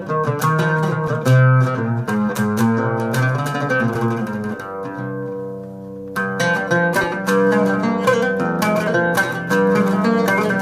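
Solo oud playing a quick run of plucked notes. About halfway through it eases to a few longer ringing notes, then picks up again with a sharp attack.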